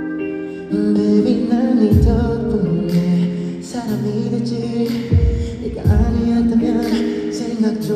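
Live pop song on a concert PA with singing. Held chords open it, and about a second in the full backing comes in with a deep kick drum and cymbals.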